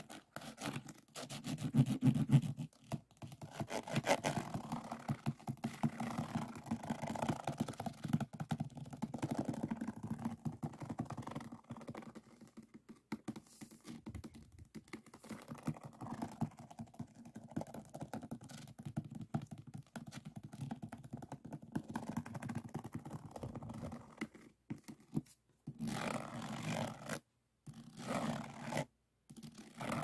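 Fingertips and a plastic diamond-painting pen rubbed and scraped across the faceted resin drills of a diamond painting, a dense crackly scratching with a few short pauses.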